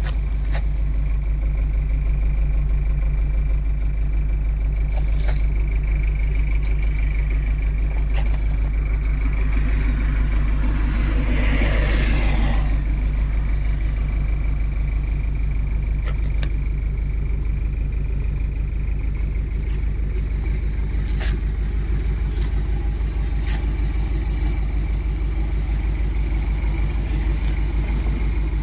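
1957 Buick's V8 engine idling steadily, with a brief swell of noise partway through.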